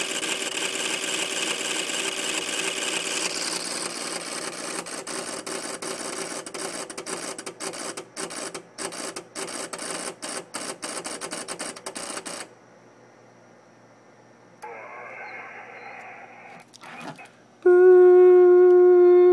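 LDG AT-1000Pro automatic antenna tuner's relays clicking rapidly as it searches for a match, for about twelve seconds, then stopping. A loud steady pitched tone with overtones starts near the end.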